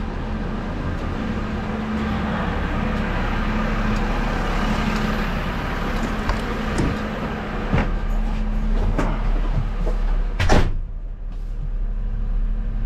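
Refuse truck's diesel engine idling steadily, with a few knocks as the cab is entered, then the cab door shut hard about ten and a half seconds in. After it closes, the engine sounds muffled.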